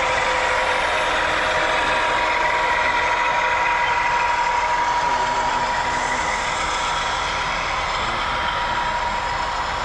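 Sound-equipped HO scale BNSF diesel locomotives running, their LokSound decoders playing diesel engine sound through the models' small speakers, with a steady high whine over it.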